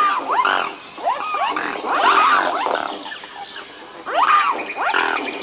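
Swans calling: hoarse, honking calls that bend up in pitch and fall back, coming in overlapping bouts about once every second or two.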